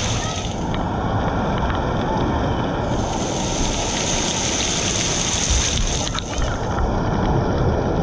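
Steady rush of water spraying and pouring down around a water play structure, close to the microphone, with a hiss that fades and returns.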